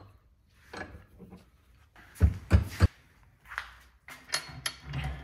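Knocks and clunks of the steel stove door with its glass panel being handled and fitted, with three heavy knocks a little past the middle. A faint steady hum comes in near the end under lighter clicks.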